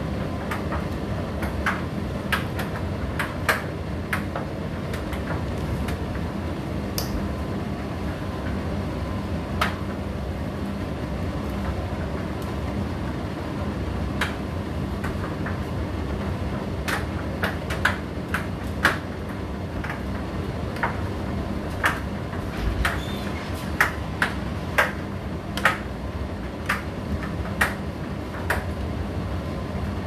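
Indesit IDC8T3 condenser tumble dryer running: a steady hum from the motor and turning drum, with irregular sharp clicks and taps as the tumbling load knocks against the drum, more frequent in the second half.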